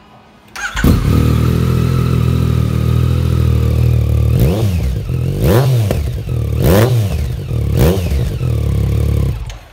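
Yamaha XSR900's 847 cc inline-three engine, breathing through an aftermarket Scorpion exhaust, starting up under a second in and idling with a throaty note. It is then blipped four times, each rev rising and falling back to idle, and is switched off near the end.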